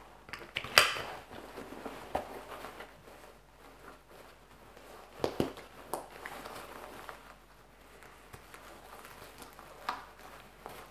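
Rustling webbing and scattered clicks of buckles and fasteners as a 6Sh112 tactical vest is put on and fastened at the waist, picked up from a lapel microphone lying on a table a few metres away. The sharpest click comes about a second in, with another about five seconds in.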